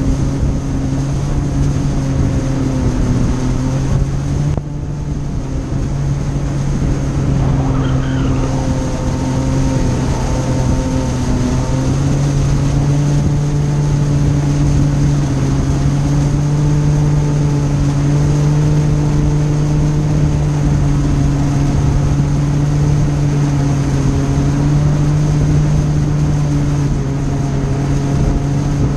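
Yamaha WaveRunner personal watercraft engine running steadily at speed, a constant drone with water spray and rushing air around it. The engine eases briefly about five seconds in, then holds steady again.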